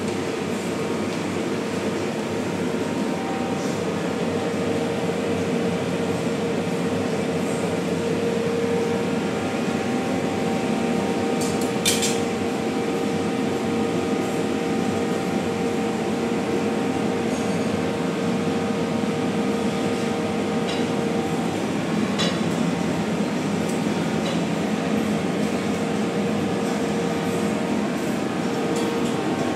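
Steady hum of a buffet dining room's ventilation, with a few sharp clinks of crockery or utensils, the clearest about twelve seconds in.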